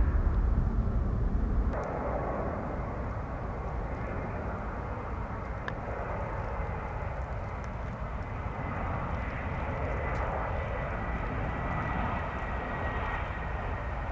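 Airliner engine noise: a deep rumble for the first couple of seconds, then a sudden change to a steadier, brighter rushing sound, with a faint thin whine coming in near the end.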